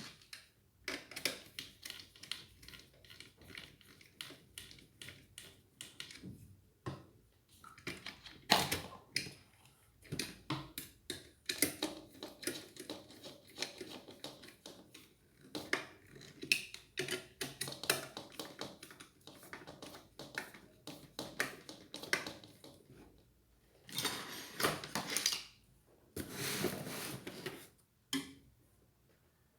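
Small metal parts and screws of a ceiling fan clicking and clinking as they are handled and fitted during assembly. There are two longer scraping stretches near the end.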